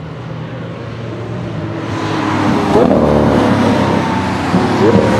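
Lamborghini Aventador's V12 engine at high revs on track, growing louder as the car approaches. The engine pitch jumps sharply twice, about three and five seconds in, with gear changes.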